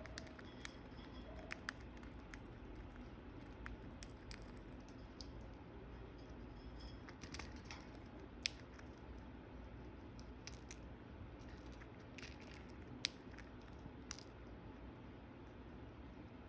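A bird pecking and eating food: scattered, irregular sharp clicks and small crunches, with the loudest pecks about eight and thirteen seconds in.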